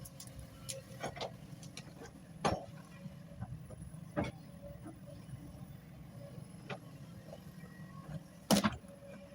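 Excavator diesel engine running steadily, with sharp knocks every second or two; the loudest comes near the end.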